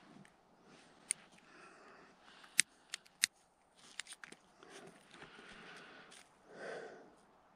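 A few sharp clicks over faint rustling, with a short louder rush near the end.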